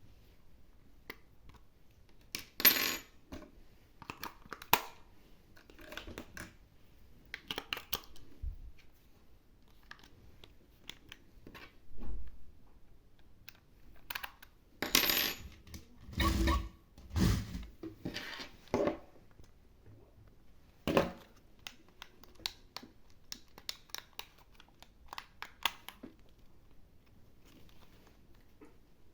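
Small hard objects clicking and clattering in short, irregular bursts as a toy is handled, with a few louder knocks, the loudest about two and a half seconds in and again around fifteen to twenty-one seconds in.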